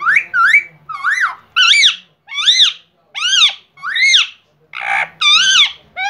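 Indian ringneck parrot vocalizing in a quick string of about nine short, high-pitched calls, each rising and then falling in pitch.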